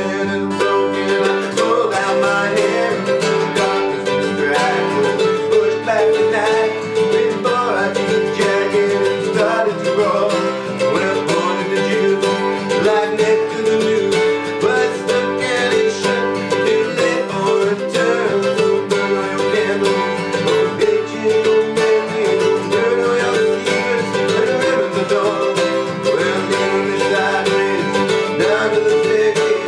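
Country-jazz band music led by rapidly picked acoustic guitar, with a busy run of plucked-string notes over a steady accompaniment.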